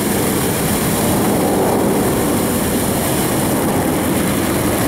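Aircraft flying over the city: a loud, steady rumble.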